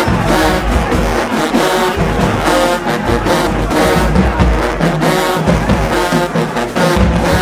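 Marching band playing loud brass chords, led by trombones, with drums beating underneath.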